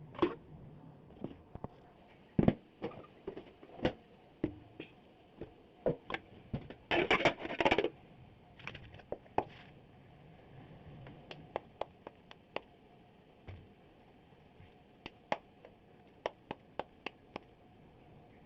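Kitchen utensils clicking and knocking at irregular intervals, with a brief dense clatter about seven seconds in.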